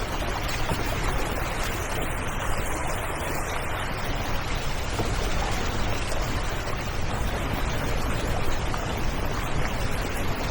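Off-road vehicle driving on a dirt trail: a steady low engine rumble under a constant hiss of tyre and wind noise.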